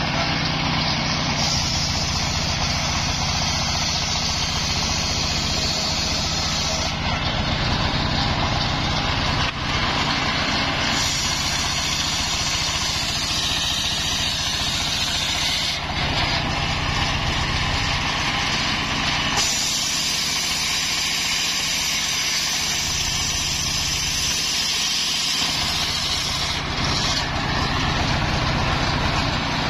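Homemade circular sawmill driven by a stationary engine running steadily while its blade rips a coconut palm log lengthwise into planks. The saw's high cutting noise over the engine shifts in strength several times as the log is pushed through.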